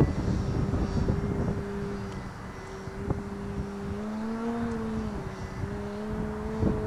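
Engine and propeller of a 72-inch 3D Hobby Shop Extra 330SC radio-controlled plane droning steadily in flight at low throttle, the pitch rising a little about four seconds in and then settling back. Gusty wind rumbles and buffets the microphone underneath.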